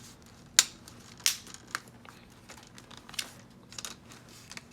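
Plastic clicks and taps from a laptop being handled: a few sharp clicks in the first two seconds, then fainter scattered ticks.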